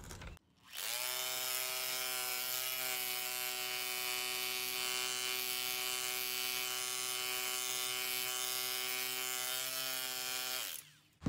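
Corded rotary hammer in hammer mode, its bit driven into concrete around a fence post base. It starts about a second in, runs steadily at an even pitch, and stops just before the end.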